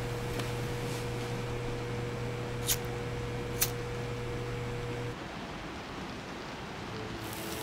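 Steady electrical hum of a neon tube, with a faint higher tone over a hiss, broken by two sharp clicks about a second apart; the hum cuts off about two-thirds of the way through, leaving a quieter hiss.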